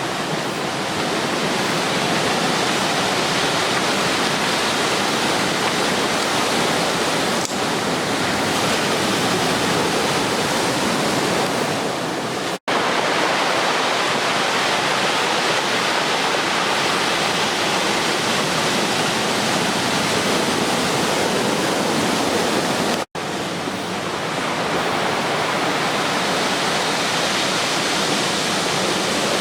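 Ocean surf from typhoon swell breaking and washing in, a steady rush of waves, cut off twice for an instant.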